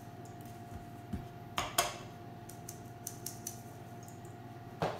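Stainless steel mesh sieve being shaken and tapped while flour is sifted into a steel bowl: soft ticks and a few metal clinks, the loudest two about a second and a half in and one near the end, over a faint steady hum.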